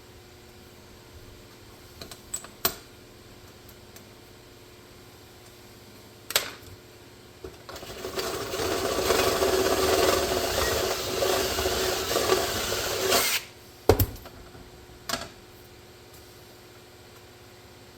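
A handheld power drill runs steadily for about six seconds, from about seven and a half seconds in. Sharp knocks of tools and parts being handled come a few times before and after it.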